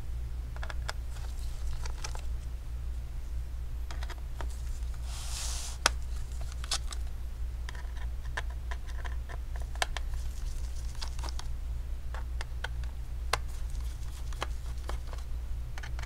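Small, sharp metal clicks and ticks of a pentalobe screwdriver working the tiny screws out of a MacBook Air A1466's aluminium bottom case. A brief rustle comes about five seconds in, and a steady low hum runs underneath.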